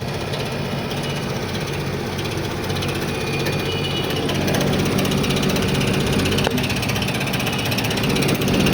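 A Carrier air conditioner's motor running with a steady hum and a fast rattling chatter: the abnormal motor noise of a faulty motor.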